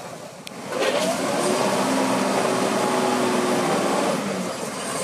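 Off-road 4x4 vehicle's engine running hard, starting just under a second in after a click, holding steady for about four seconds, then easing off near the end.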